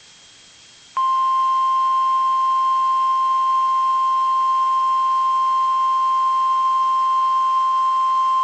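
NOAA Weather Radio 1050 Hz warning alarm tone, one steady unbroken beep. It starts about a second in, after a short stretch of faint radio hiss, and sounds the alert for the required weekly test.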